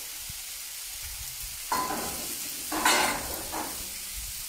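Food sizzling on a hot enamelled plancha, with two louder scrapes of spatulas stirring it, the first a little under two seconds in and a stronger one about three seconds in.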